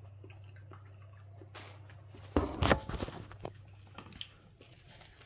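Eating from takeout packaging: faint chewing and small rustles and clicks, with a short cluster of loud knocks and rustles about two and a half seconds in.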